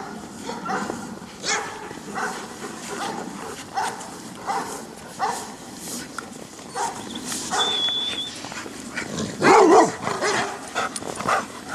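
Several dogs barking repeatedly as they play together, with a loud, close burst of barking about three-quarters of the way through. A brief high whine-like tone sounds a little past the middle.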